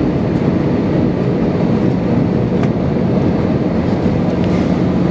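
Steady cabin noise of a jet airliner in flight on approach: engine and airflow rumble with a constant low hum, and a faint click about two and a half seconds in.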